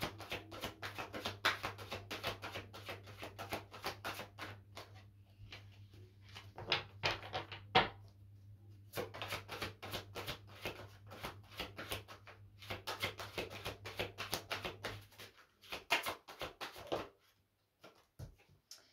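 A deck of oracle cards being shuffled overhand by hand: a rapid run of soft card slaps and rustles with a few short pauses, dying away near the end.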